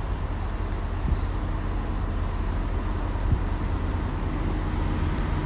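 Class 68 diesel locomotive running as it brings a loco-hauled train into the station: a steady low rumble, with a faint hum joining about three seconds in.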